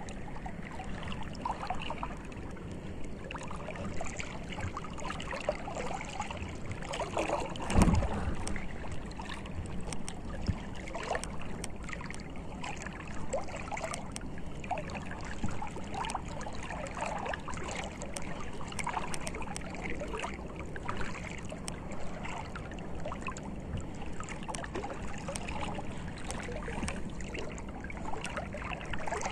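Seawater gurgling and sloshing, with many small scattered clicks and one louder swish about eight seconds in.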